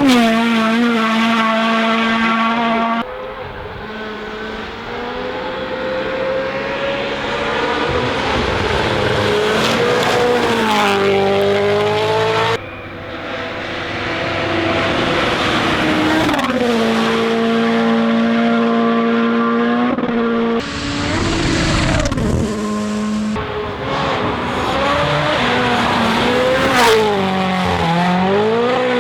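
WRC Rally1 cars' turbocharged 1.6-litre four-cylinder engines at full throttle, the engine note held high and then falling and rising again through gear changes, across several cut-together shots.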